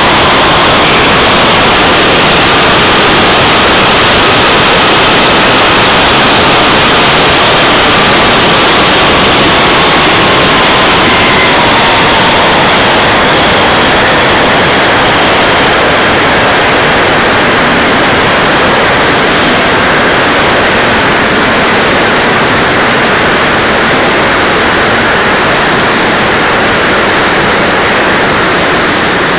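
RC model jet's engine and airflow heard from the onboard camera: a loud, steady rush with a faint whistling tone that slowly sags in pitch. It eases slightly near the end as the model comes down onto the grass.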